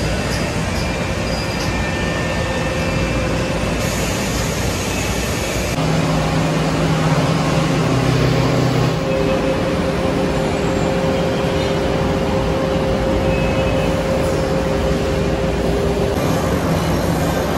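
Steady hum and drone of factory machinery, with several steady tones under an even noise. The mix changes abruptly a few times.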